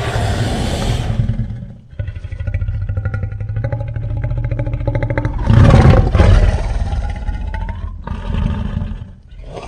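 Cartoon giant tyrannosaurus roaring and growling: a loud roar at the start, a long rumbling growl, a second loud roar about six seconds in, then more growling.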